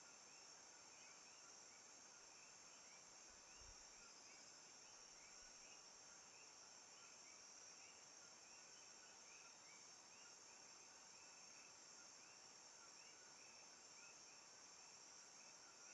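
Faint Costa Rican rainforest ambience: a steady high-pitched insect drone with short, repeated chirps over it.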